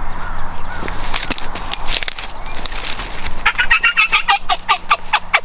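Wild turkeys calling: a fast run of short, descending notes, about six a second, starting a little past the middle and lasting about two seconds, after a few scattered sharp clicks.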